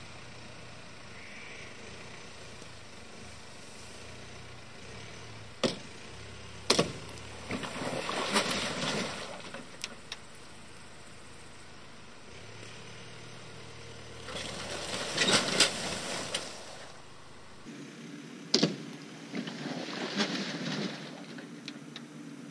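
Subaru estate car's engine revving in three long surges as it strains to tow a mired tractor out of water on a rope, with a few sharp knocks in between.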